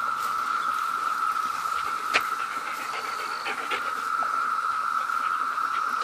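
Steady, unbroken drone of a cicada chorus, with a few light clicks and one sharp click about two seconds in.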